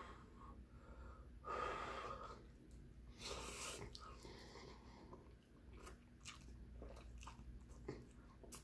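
Spaghetti being slurped and chewed: a soft rush about a second and a half in, a hissing slurp around three seconds, then soft wet chewing clicks.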